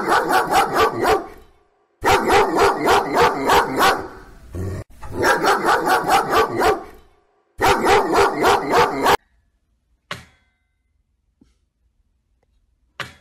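A dog barking rapidly, about five barks a second, in four long runs with short breaks. After the barking stops there are two brief sharp clicks of a puppy mouthing a wire crate door.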